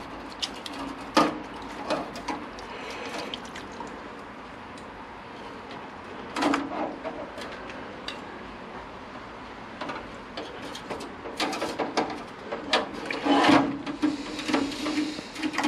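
Cleaning solution splashing and dripping as metal carburettor parts are lifted and moved in an ultrasonic cleaner's liquid, with sharp clinks of the parts against the stainless steel tank and basket. The splashing comes in clusters, with a burst about six seconds in and a busier stretch near the end.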